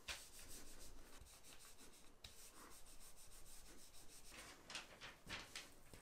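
Hands rubbing the back of a sheet of thin paper laid over an inked wood block, a faint repeated swishing, pressing the wood's texture into the paper as a print.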